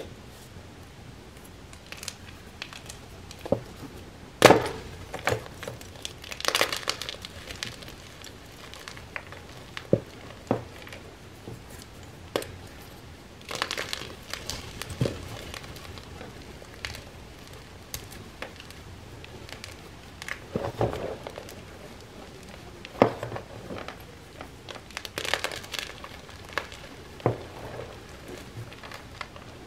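Soft reformed gym chalk squeezed and crushed between bare hands: irregular crunches and crumbles with a few sharper cracks, the loudest about four and a half seconds in.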